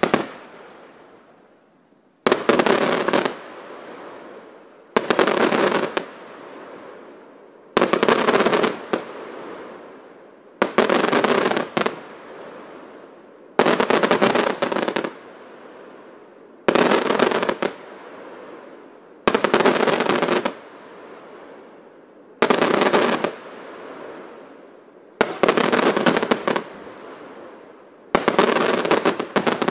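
Aerial firework shells bursting one after another, about every three seconds. Each burst is a sharp bang followed by about a second of dense crackling that fades away before the next.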